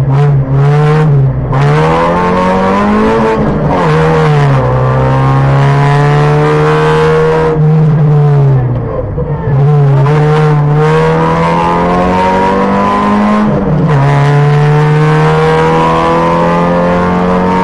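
Opel Astra rally car's engine under hard acceleration, heard from inside the car: the revs climb in long sweeps and drop sharply several times at lifts and gear changes.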